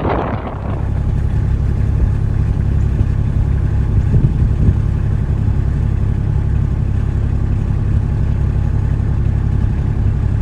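Strong wind buffeting the microphone: a gust that dies away in the first second, then a loud, steady low rumble.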